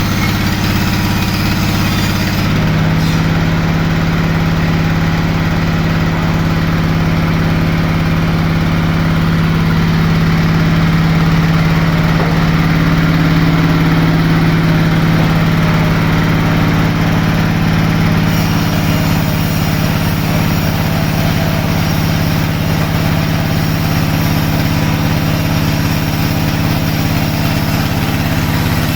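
Sawmill machinery running with a loud, steady hum that holds an even pitch throughout.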